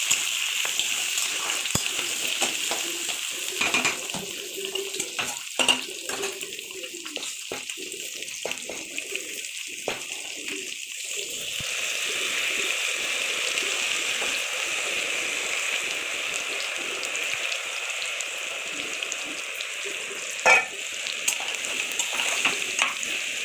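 Oil sizzling in a pan under the scrape and clink of a steel spatula stirring vegetables. About twelve seconds in, rice is tipped into hot oil in a pressure cooker pan and a louder, steady sizzle starts as it fries, with spoon scraping. A single sharp metal clank comes near the end and is the loudest sound.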